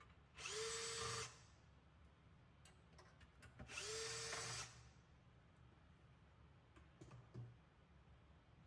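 Cordless drill with a Phillips bit run in two short bursts, each spinning up to a steady whine, backing out PSU retaining screws. A few light clicks follow near the end.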